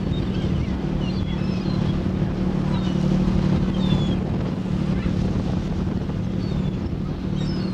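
Fishing boat's engine running with a steady low hum, while gulls flying around the boat give many short, high calls.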